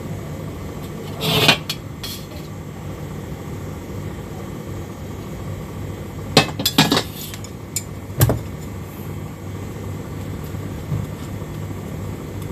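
An aluminium wok shifted and tilted on the stovetop to swirl hot oil around it: a short scrape about a second and a half in, then a few sharp knocks of the pan against the hob a little past the middle. A steady low hum runs underneath.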